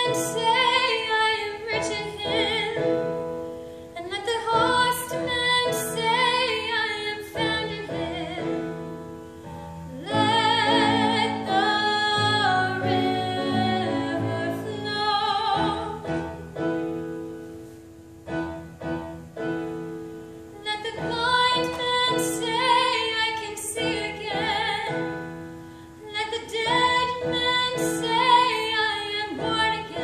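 A woman singing solo in a trained, operatic style with clear vibrato, in phrases separated by short breaths. Instrumental accompaniment holds sustained chords beneath her voice.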